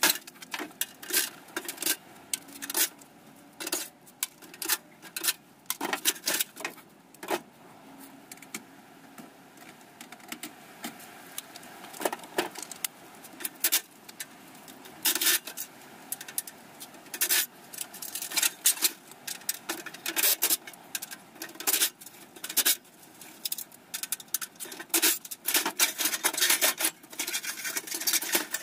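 Irregular metal clinks, rattles and knocks as scrap air-conditioner parts are handled and taken apart by hand on a truck tailgate, with no steady machine sound.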